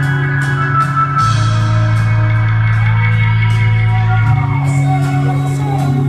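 Rock band playing live: held bass notes that change about a second in and again past four seconds, under drums with cymbals and electric guitar, some guitar notes gliding in pitch in the second half.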